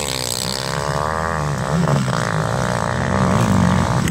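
Several racing quad bikes' engines revving, their pitch rising and falling with the throttle as they climb and jump a dirt motocross hill.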